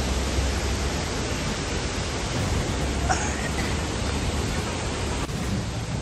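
Steady rushing roar of a wide waterfall, water pouring over a broad rock ledge and heard as an even, unbroken hiss.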